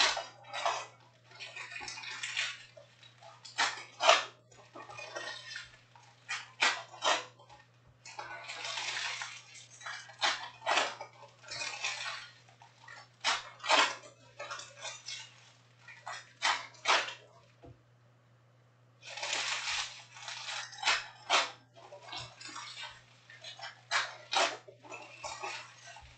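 Foil Panini Prizm trading-card packs crinkling and tearing as they are opened, and the cards are handled and flipped, in irregular bursts of crackling with a short lull about two-thirds of the way through. A steady low hum runs underneath.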